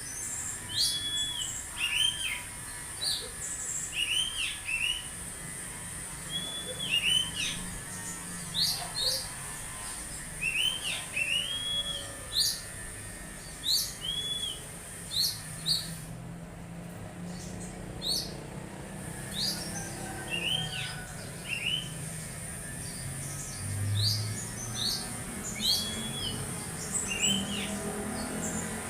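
Oriental magpie-robin (kacer) calling: a busy run of short whistled notes, many sweeping steeply down in pitch and some held briefly and then dropping, about one or two a second, with a short pause about two-thirds of the way through. A steady thin high-pitched hiss runs underneath.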